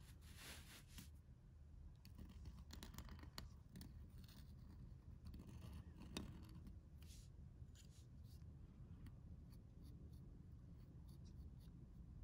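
Pointed metal calligraphy nib scratching faintly across paper in a series of short strokes, with one sharp tick near the middle, over a steady low room hum.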